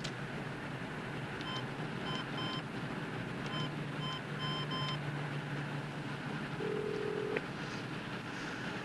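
Telephone keypad beeping as a number is dialed: three short beeps, then after a pause five more, followed by a brief two-note ringing tone on the line, over a steady background hum.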